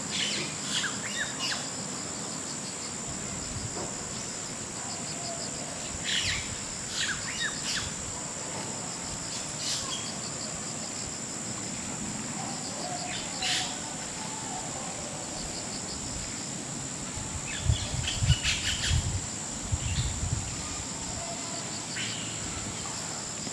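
Outdoor ambience: a steady high insect trill with short bird chirps now and then. A few low, dull thumps come about three-quarters of the way through and are the loudest sounds.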